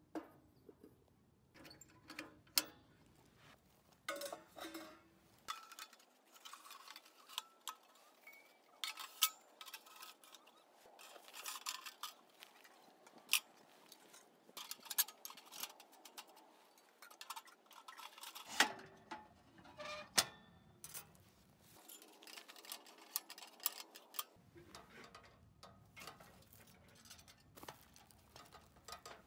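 Scattered light metal clicks and clinks as a small steel rocket stove and a stainless steel pot of ash are handled and moved about.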